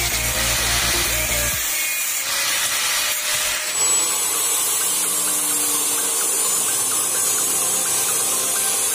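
Angle grinder's cutting disc running against steel as it cuts through a bicycle hub's axle. Its low part drops away about a second and a half in.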